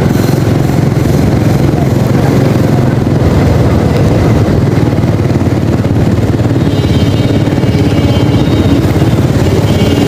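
Honda motor scooter's small engine running steadily while riding at low city speed. A faint high-pitched tone joins about seven seconds in.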